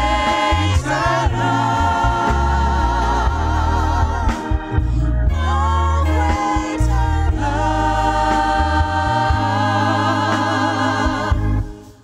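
Gospel song: sustained sung notes with a wavering vibrato over a deep bass line. It stops just before the end.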